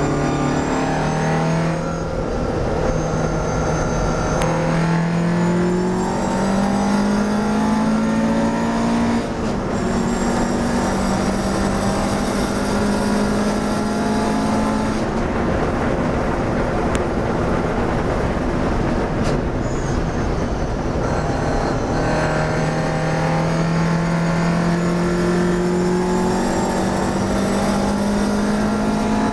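Classic racing car's engine heard from inside the cockpit, pulling hard under acceleration. Its pitch climbs, drops at a gear change about nine seconds in and climbs again. It loses its clear note for several seconds in the middle, then rises once more near the end.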